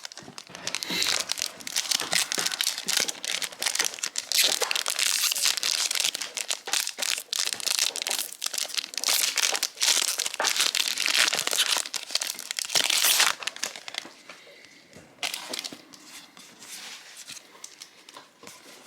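Foil booster packs of trading cards being torn open and crinkled, then cards being shuffled and handled. The crinkling is dense for most of the time, then thins to sparser rustling for the last few seconds.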